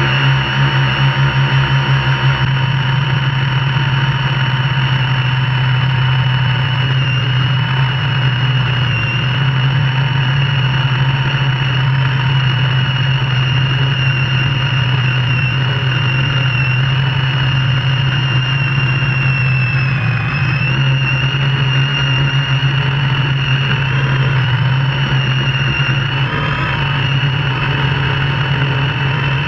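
MikroKopter QuadroKopter's four brushless electric motors and propellers humming steadily in flight, heard from the onboard camera, with a high whine over a strong low hum. The whine wavers slightly in pitch about two-thirds of the way through and again near the end, as the throttle changes.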